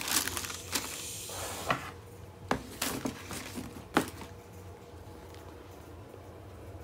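Tissue paper rustling as it is folded, then a few sharp knocks and taps of a cardboard shoebox being handled. The loudest knock comes about four seconds in, as the lid is pressed down.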